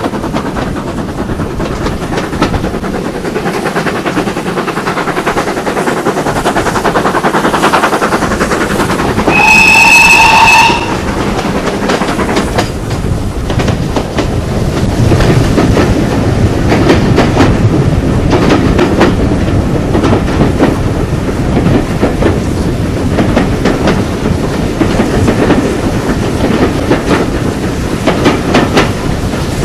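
Heritage railway train running, its wheels clattering over the rail joints with a steady rumble. About nine seconds in, the locomotive sounds its warning signal once for about a second and a half.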